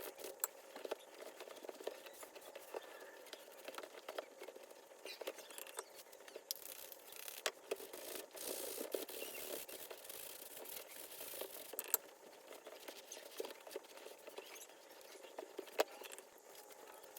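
Irregular rubbing and scraping from hands working on a leather baseball glove, with scattered sharp clicks and taps.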